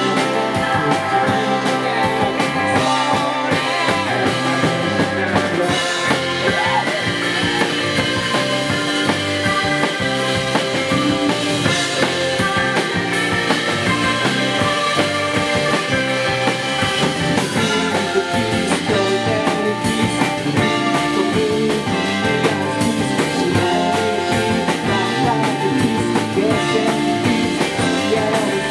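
A rock band playing live: electric guitars, bass guitar and drum kit, loud and steady.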